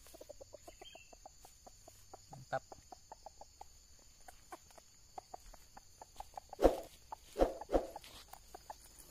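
Junglefowl clucking in a rapid run of short clucks, about three or four a second, with three louder, harsher outbursts about two-thirds of the way through.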